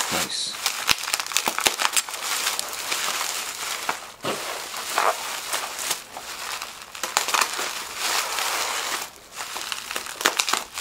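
Plastic bubble wrap crinkling and crackling as it is pulled and cut open by hand, full of short sharp clicks, with a few brief lulls.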